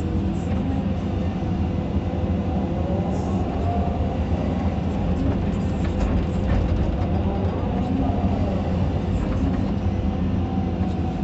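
Caterpillar 320D2 hydraulic excavator heard from the operator's cab: the diesel engine running steadily under load, with a hydraulic whine that rises and falls in pitch as the boom and bucket work the soil.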